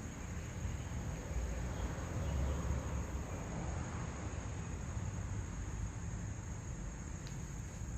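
Steady high-pitched insect chirring, like crickets, over a low rumble, with no distinct tool or part sounds.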